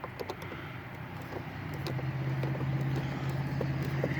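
Light scattered clicks of a wrench working loose a car battery terminal clamp. From about two seconds in, a steady low engine hum from another vehicle's running motor comes up and holds.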